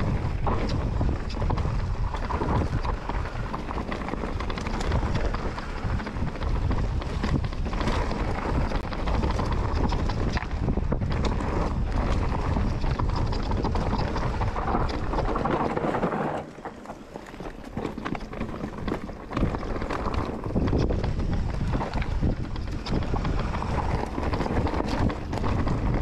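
Wind buffeting the microphone of a camera riding on a Commencal Meta enduro mountain bike on a trail descent, with frequent short knocks and rattles from the bike over rough ground. The rush drops quieter for about three seconds two-thirds of the way through, then returns.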